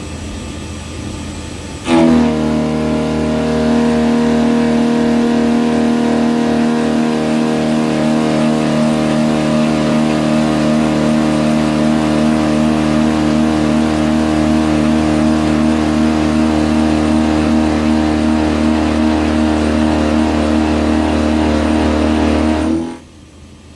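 PM25 CNC milling machine side-milling 4340 steel with an end mill. About two seconds in, the cutter bites into the steel and a loud, steady pitched drone with overtones sets in. It holds through the whole cut and stops abruptly near the end as the cutter leaves the work; before the cut there is only a lighter running sound.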